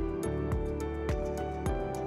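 Background music: soft sustained notes over a steady beat, about two beats a second.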